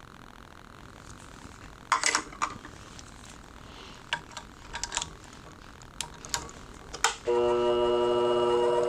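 Scattered clicks and knocks of a shear clamp and tools being handled, then about seven seconds in a shear-sharpening machine's motor switches on and runs with a steady hum.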